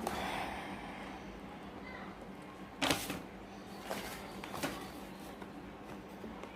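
Hands opening a small cardboard product box: a light rustle, then three sharp clicks or snaps of the packaging about three, four and four and a half seconds in.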